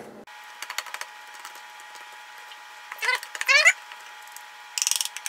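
Wooden spatula pressing and scraping wet wood sorrel leaves against a plastic strainer: scattered light scrapes and taps, a few short rising squeaks about three seconds in, and a quick rattling scrape near the end.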